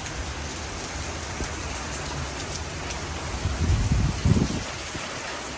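Heavy rain pouring down steadily in a thunderstorm gust front. Strong wind gusts hit the microphone as low rumbling surges a little past the middle.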